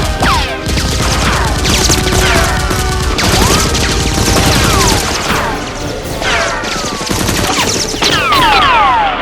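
Rapid, sustained gunfire sound effects, dense volleys of shots, with repeated falling whistling whines over them, over background music.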